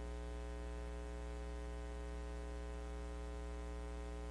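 Steady electrical mains hum with hiss on the broadcast audio feed: a low buzz with a ladder of overtones, unchanging throughout.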